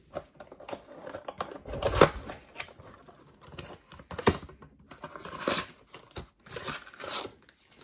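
Cardboard trading-card blaster box being opened and handled by hand: flaps folded back with scattered taps, scrapes and rustles, and sharp knocks about two seconds in and again around four seconds in.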